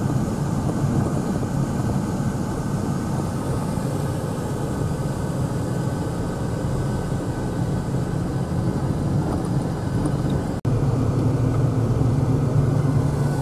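Steady engine and road noise inside a car's cabin while driving on a snow-covered road. About ten seconds in the sound cuts out for an instant, then comes back a little louder.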